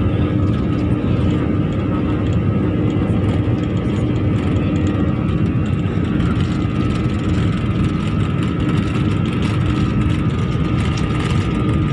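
Jet airliner's turbofan engines running steadily, heard from inside the passenger cabin as the plane rolls along the ground: a constant hum with a steady low tone under it.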